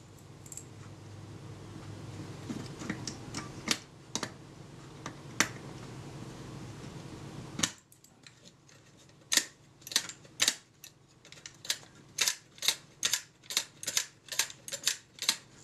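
Light, sharp mechanical clicks and taps from hands and a small tool working the metal fittings of an old box camera. They are sparse over a steady hiss at first; about eight seconds in the hiss stops, and the clicks come quickly and irregularly, two or three a second.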